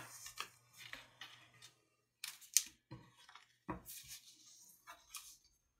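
A sheet of US Letter paper being folded and creased by hand: faint, scattered rustles and crinkles of the paper as it is pressed flat.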